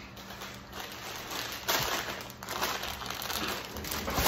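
Crinkling and rustling as items and wrapping are shifted and packed into a cardboard box, loudest in a burst about two seconds in.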